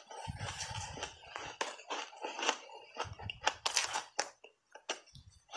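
Chunks of refrozen 'reshape' ice coated in matcha powder being bitten and chewed: a run of irregular crisp crunches and cracks, the sharpest and loudest coming a little past the middle and thinning out near the end.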